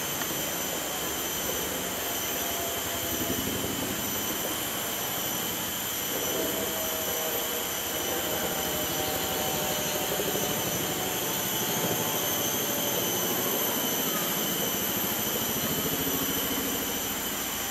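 Black howler monkeys howling: a deep, rasping, continuous roar, a little louder in the second half.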